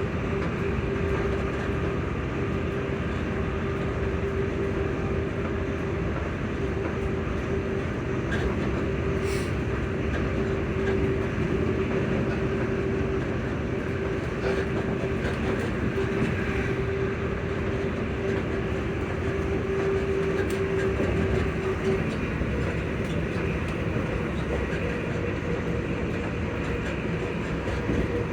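ScotRail Class 334 electric multiple unit running, heard from inside: a steady traction-motor whine holds one pitch over the rumble and clatter of the wheels on the track, then cuts out about three-quarters of the way through.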